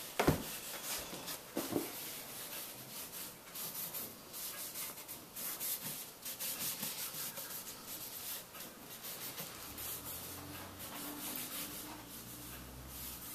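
Repeated rubbing strokes on wood, about one or two a second, as stain is worked by hand into a wooden threshold.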